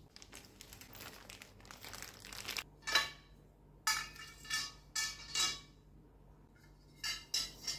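A paper sheet rustling, then the rack's white metal poles knocking and clinking on a tile floor, about eight short ringing knocks.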